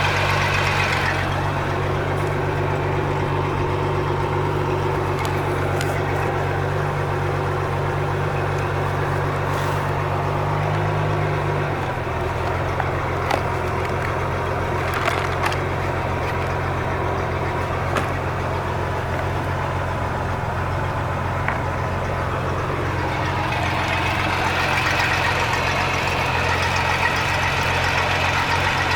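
Mercruiser 4.3 carbureted V6 marine engine idling steadily after its starter was replaced and carburetor rebuilt, running normally. About twelve seconds in, the idle settles slightly lower.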